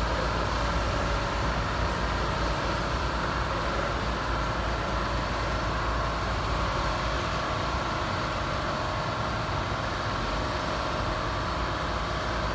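Railroad work train rolling slowly along the track, a steady rumble of wheels and machinery with a faint steady high tone over it.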